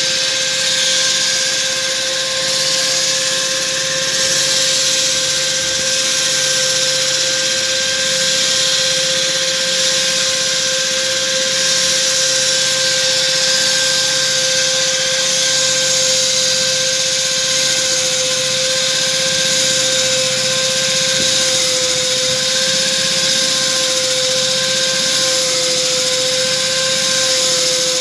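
Electric core-cutting drill running steadily under load as it cuts into concrete, a constant whine over grinding hiss.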